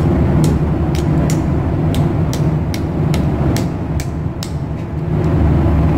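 Steady low hum of pump-room machinery. Over it come about a dozen sharp metallic clicks at irregular intervals, from a steel retaining ring and tools being worked into the groove of the cargo pump's mechanical seal housing. The clicks stop about five seconds in.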